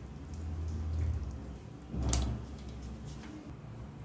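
Handling noise at a kitchen counter: a low rumble in the first second, then a single dull knock about two seconds in.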